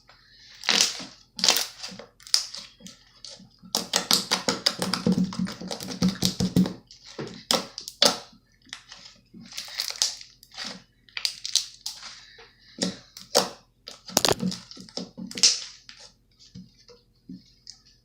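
Slime being squeezed and pressed by hand, giving a string of sticky clicks and pops. A dense, rapid run of them comes about four to seven seconds in.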